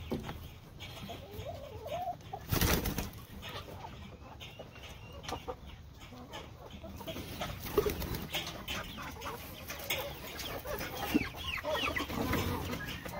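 Backyard chickens clucking and calling, with a brief rustle about two and a half seconds in and a run of quick, high, short calls in the last few seconds.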